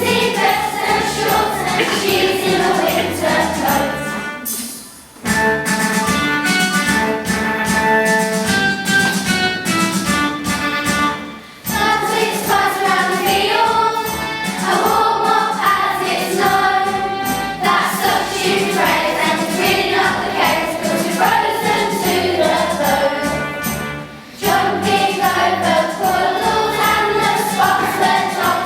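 A song sung by a group of voices in unison with instrumental backing, breaking off briefly three times between phrases.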